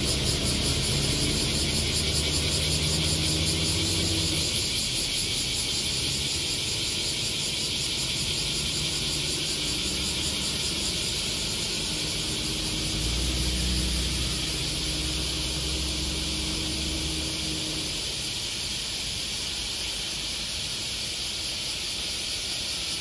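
City bus engine pulling away and fading into the distance over the first four seconds, then a van driving past with a louder swell about thirteen seconds in, over a steady high hiss.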